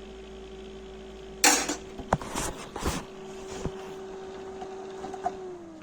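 Clicks and knocks from hands working on a desktop computer tower, over a steady electrical hum. A short loud burst of noise comes about one and a half seconds in, then several sharp clicks, and the hum slides down in pitch near the end.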